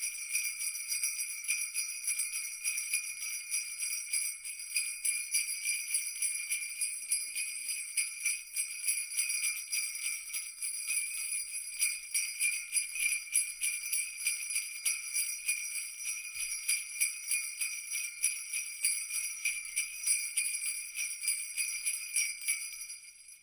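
Jingle bells shaken continuously in rapid strokes, fading out near the end.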